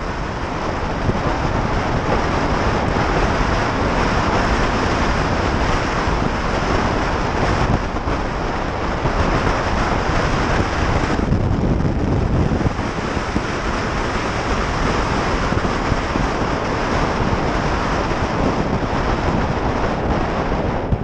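Wind noise on the microphone of a moving motorcycle, a steady rush, with the bike's engine and road noise underneath.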